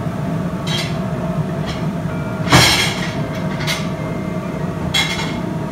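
Steady low hum of a commercial kitchen, with a few short scrapes and clinks of a knife and fork on a china plate as an omelette is cut; the loudest scrape comes about two and a half seconds in.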